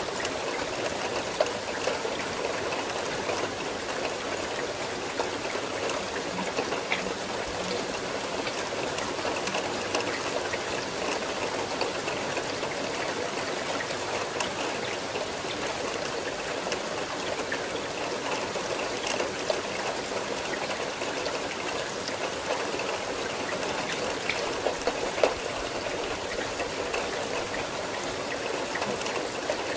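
Steady rain falling, a continuous even patter with a few louder single drop taps standing out now and then.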